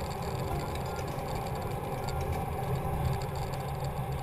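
Off-road vehicle engine running steadily at low speed as it crawls over a rocky trail, with scattered small knocks and rattles from the rough ground.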